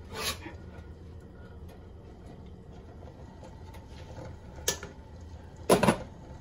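Steady low hum of a small kitchen with a few light clicks, a sharper click about four and a half seconds in, and a short loud knock near the end.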